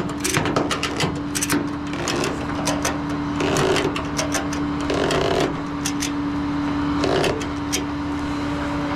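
Ratchet tie-down strap being worked to secure a car for towing: a run of quick clicks, then scattered clicks and a few short rasping strokes, over a steady hum.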